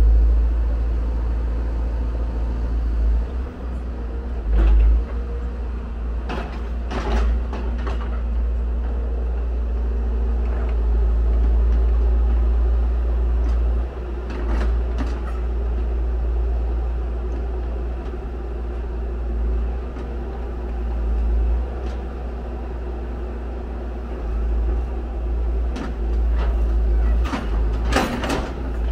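Hyundai R170W wheel excavator's diesel engine running under hydraulic load as the boom swings and the bucket digs into soil, with a steady low rumble. Several sharp clanks and knocks, a cluster about 7 seconds in and another near the end as the bucket bites into the dirt.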